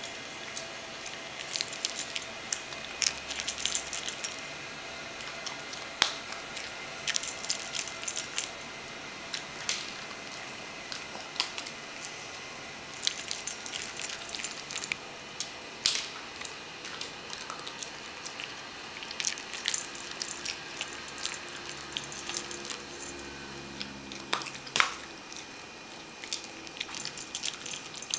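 Toy poodle eating dry kibble from a bowl: irregular crunching and clicking as it chews and pushes the kibble around the bowl, with one louder clink near the end.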